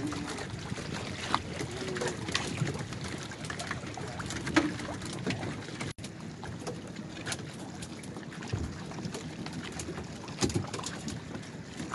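Water lapping around a small open fishing boat, with wind on the microphone and scattered sharp knocks against the hull.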